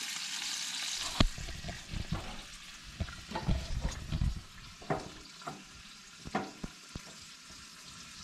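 Bacon sizzling in a frying pan on a camp stove: a loud hiss for about the first second, then fainter, with scattered pops and clicks and a few low thumps.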